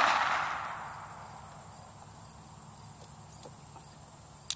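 The echo of a .22 pistol shot fading away over about a second and a half, then faint steady insect chirring. Near the end comes one sharp click, much quieter than the shot.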